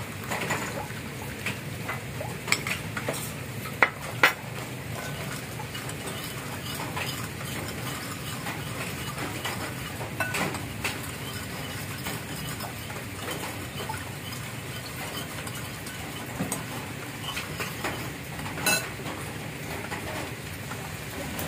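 Metal spoon stirring sugar and lime juice in a ceramic bowl, clinking sharply against the bowl now and then, the loudest clinks about four seconds in. A steady hiss runs underneath.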